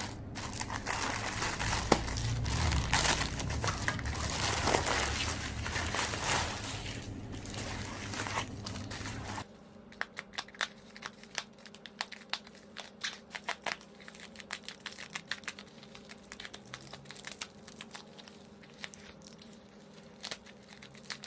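Parcel packaging being torn open by hand: crinkling and tearing that stops suddenly about nine seconds in, followed by light, scattered taps and rustles of handling.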